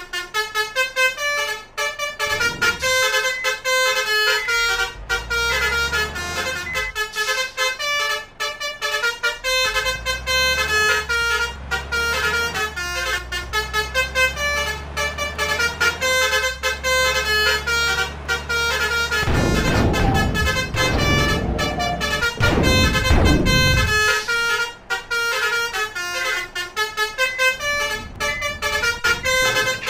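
Multi-tone 'telolet' bus horn (Basuri trumpet horn) playing a fast melody of short notes without a break, over a low rumble. About twenty seconds in, a few seconds of loud rushing noise.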